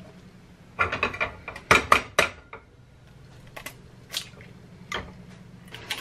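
Kitchen cookware and utensils clattering: two quick runs of metal knocks and clinks in the first couple of seconds, then a few single clinks spaced out after that. A steady low hum runs underneath.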